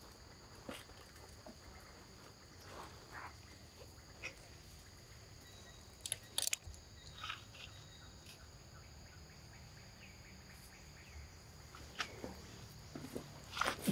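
A steady high insect drone, with a few scattered sharp clicks and rustles, the loudest about six seconds in and again near the end.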